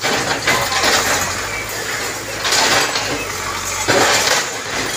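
Diesel engine of a Cat 424B backhoe loader running steadily while its backhoe bucket pulls down a brick wall. Bricks and masonry crash and clatter down in bursts, about half a second in, around two and a half seconds and again at four seconds.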